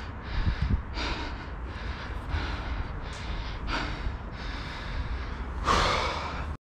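A person breathing hard, a run of short, noisy breaths about once a second, with a louder breath near the end. The sound cuts off suddenly just before the end.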